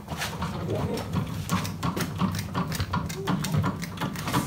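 Quick irregular metallic clicks and rattles of a small drill bit being handled and fitted into a pillar drill's chuck.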